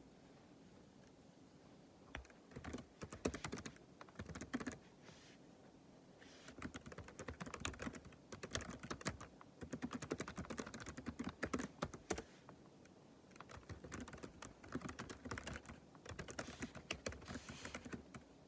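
Typing on a computer keyboard in quick runs of keystrokes, broken by brief pauses; the typing begins about two seconds in.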